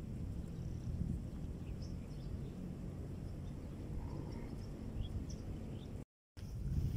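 Outdoor ambience: a low, uneven wind rumble on the microphone with a few faint, scattered bird chirps. The sound cuts out completely for a moment near the end.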